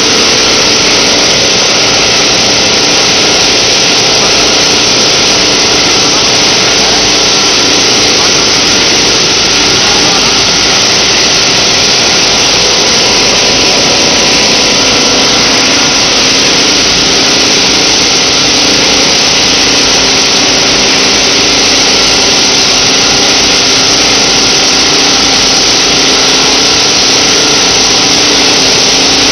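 PET bottle recycling line machinery running: a loud, steady mechanical din with a few faint steady tones under a dense hiss, with no pauses or separate knocks.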